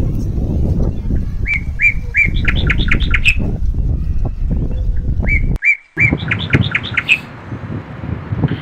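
A bird calling twice in a run of chirps that quickens and climbs in pitch, over a steady low rumble.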